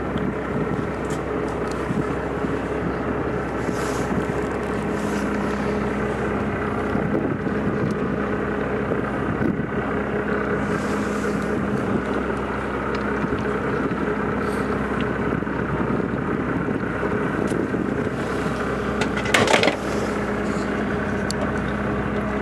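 Fishing boat's engine running steadily under the deck, with a brief loud clatter about three-quarters of the way through.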